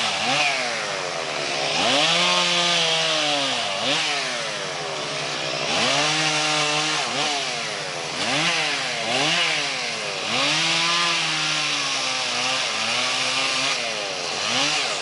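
Chainsaw cutting wood, its engine revved up and eased off over and over, so the pitch rises and falls every second or two.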